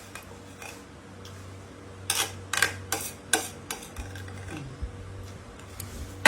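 Cutlery clinking against plates during a meal: scattered light clinks, with a quick run of sharper ones in the middle. A low steady hum runs underneath.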